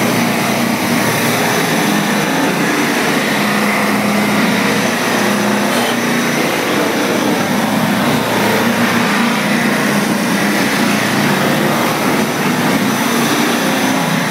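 2004 Universal bullnose edge-profiling machine running steadily: a constant motor hum under a loud, even hiss from its water spray.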